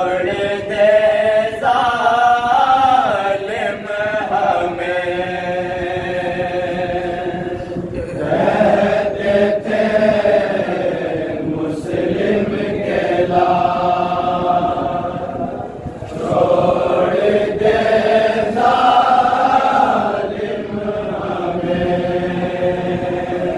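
A group of men chanting a noha, a Shia mourning lament in Urdu, together in long held phrases with short breaks between them.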